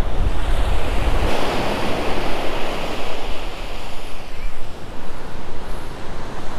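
Ocean surf breaking and washing up the beach, a wave's rush swelling about a second in and easing off after a few seconds. Wind buffets the microphone with a low rumble for the first second or so.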